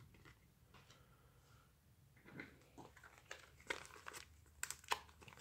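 Faint crinkling and a few sharp clicks from a Pokémon trading-card pack and its cards being handled, starting about two seconds in.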